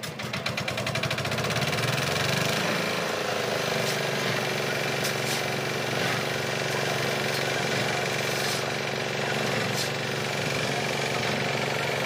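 Concrete mixer's engine starting and picking up speed over the first couple of seconds, then running steadily.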